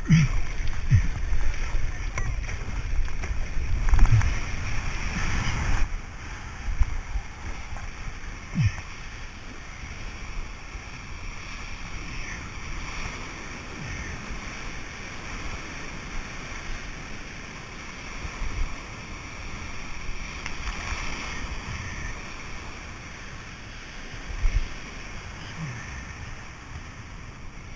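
Paddle strokes and water splashing and lapping around a stand-up paddleboard, with a low wind rumble on the microphone that is strongest for the first six seconds. Rushing water swells up near the end as the board runs into the whitewater of a small wave.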